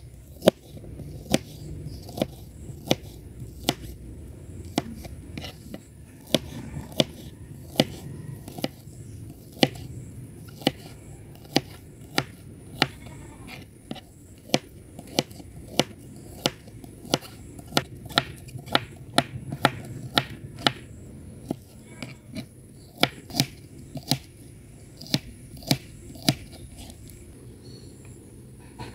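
A kitchen knife slicing baby corn on a plastic cutting board, with a sharp knock each time the blade hits the board. The knocks come about one and a half times a second at a steady pace.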